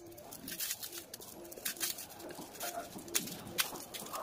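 Dry, papery onion skins crackling in sharp little clicks as a small onion is peeled by hand, with a bird cooing in short repeated low notes in the background.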